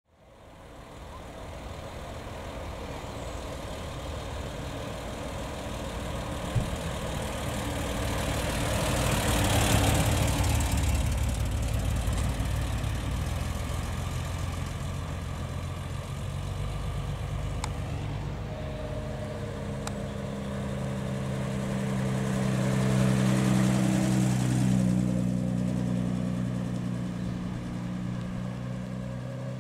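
Two classic cars drive past one after the other, each growing louder as it passes and fading as it pulls away. The second, a Jaguar XK coupé, has a steady low engine note that carries on as it drives off.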